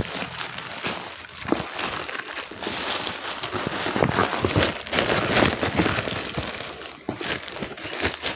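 A plastic courier mailer bag crinkling and rustling with small crackles as it is opened by hand and worked off a shoebox. It eases off briefly about seven seconds in.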